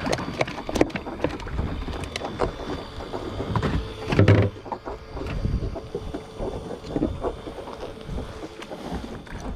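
Deck sounds on a small fishing boat at sea: steady wind and water noise, with scattered knocks and clatter, and a louder thump about four seconds in.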